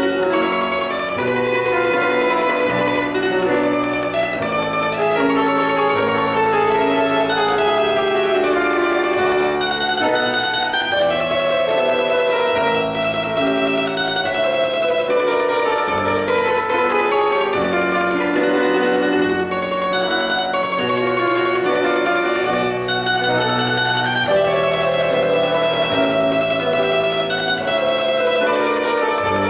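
Instrumental music from two players: a plucked-string melody over a held, lower accompaniment that changes every second or two, playing without a break.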